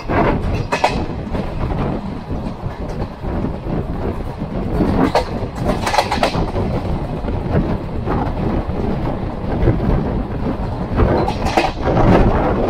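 Running noise of a moving passenger train heard from a coach window: a steady rumble of wheels on the rails with a rush of wind, broken by a few louder knocks.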